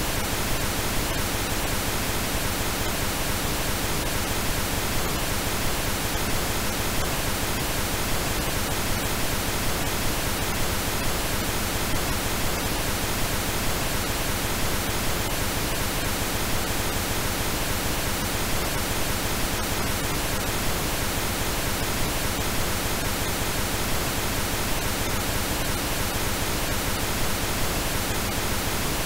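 Pink noise: a steady, unchanging hiss spread evenly from deep to high pitches, with no breaks or changes.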